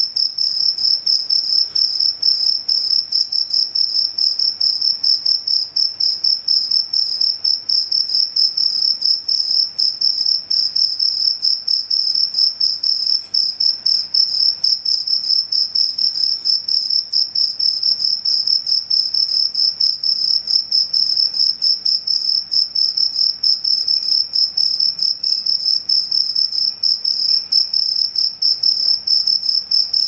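Cricket chirping without pause, a shrill high-pitched trill in rapid, even pulses.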